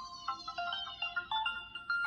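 Ringtone playing from an LG Extravert 2 (VN280) phone's speaker: a quick melody of short electronic notes.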